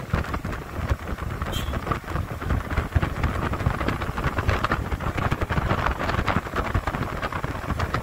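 Wind buffeting the microphone of a camera filming from a moving vehicle, over a low road rumble.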